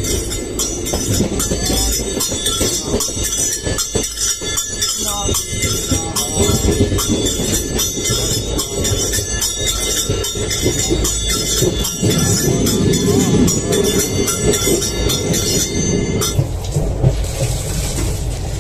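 Passenger train coach in motion: a steady rumble of wheels on the track with rapid clatter, heard from the coach doorway and inside the carriage.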